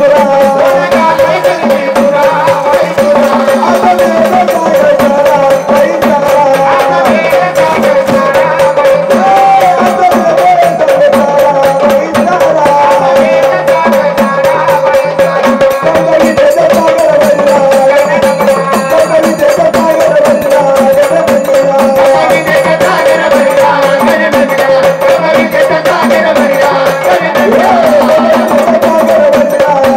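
Marathi folk devotional music in the gondhal style: a steady held drone under a wandering melody line, driven by fast, even hand-drum and rattle percussion.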